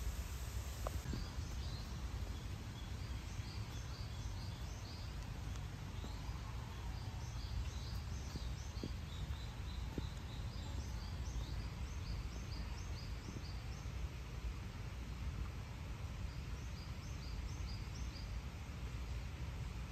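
Outdoor ambience: a steady low background rumble, with a bird calling in repeated runs of short, high chirps.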